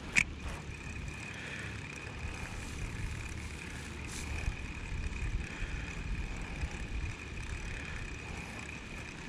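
Spinning reel on an ultralight rod: a sharp click as the bail closes just after the cast, then a steady high whir as the line is reeled in, over a low rumble of wind on the microphone.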